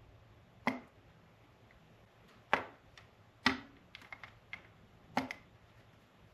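Light clicks and taps of a small plastic slot-car track cleaning truck and its magnetic cleaning pad being handled: about five sharp clicks spaced roughly a second apart, with a quick run of lighter ticks around four seconds in.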